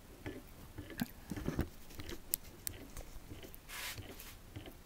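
Rotary compressor pump turned over slowly by hand, its rotor and vane making faint, irregular clicks and light knocks. A short hiss comes about four seconds in.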